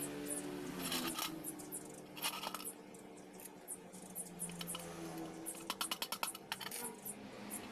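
Light metallic clinks and taps of a motorcycle chain and pliers against a steel plate, with a quick run of clicks a little before the end. Soft background music runs underneath.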